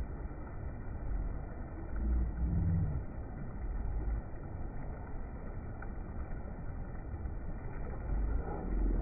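Shallow beach surf washing in and out around the shark and the men's legs, under a low, uneven rumble of wind on the microphone that swells louder a couple of seconds in and again near the end.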